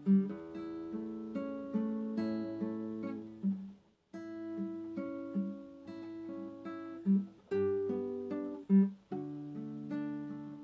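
Acoustic guitar played slowly, plucked notes and soft chords ringing out, with a brief break about four seconds in.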